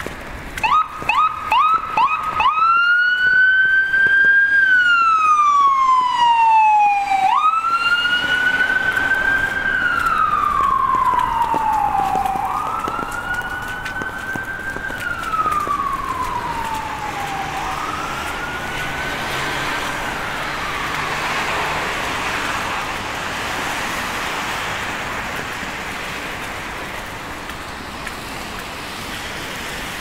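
Emergency vehicle siren: a few quick yelps, then a slow wail that rises and falls four times before fading away, leaving a steady hiss of street noise.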